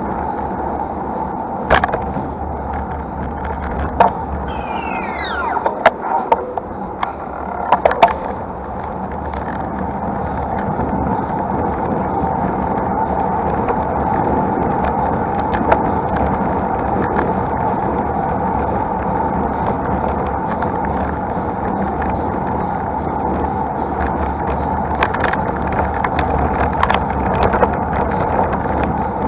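Road noise and wind from a road bike climbing a mountain road: a steady rush of tyre and air noise, with scattered sharp clicks and a few short falling squeaks about five seconds in.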